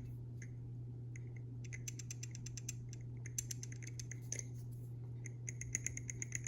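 TheOne Alien balisong being shaken in a tap test: three short runs of faint, rapid clicking as the blade knocks lightly against the handles. The light clicking is the little tap left after the pivot screws were tightened and the pivots lubed.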